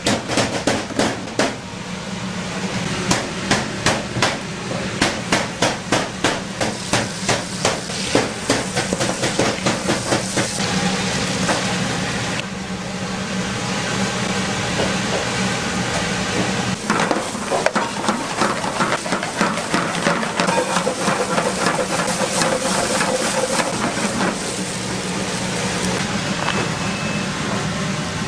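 Repeated sharp knocks, about two a second, for roughly the first eleven seconds. Then a steady hiss with scattered lighter clicks, over a constant low hum.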